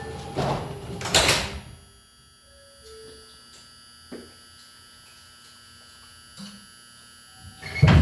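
R142 subway car doors sliding shut, with a couple of thumps in the first second and a half. A quiet stretch with only faint steady tones follows, then near the end the train starts moving with a loud rumble of motors and wheels.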